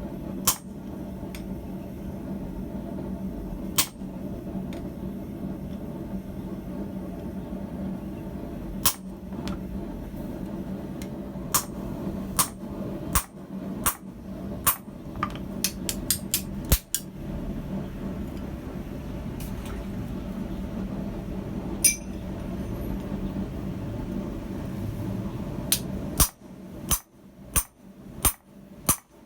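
Hammer blows on a slitter driven into the hot steel of a tong blank on the anvil, sharp metallic strikes at uneven intervals, several in quick succession in the middle and near the end. A steady low hum runs under them and drops away a few seconds before the end.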